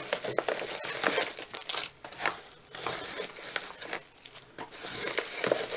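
Crinkling and rustling of a large envelope and clear plastic packets as they are handled and their contents pulled out, in irregular bursts with brief lulls about two and four seconds in.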